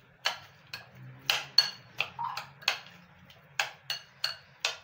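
A metal spoon clinking against a glass bowl while chicken pieces are stirred into their marinade. There are about a dozen sharp clinks at two to three a second, each with a short ring.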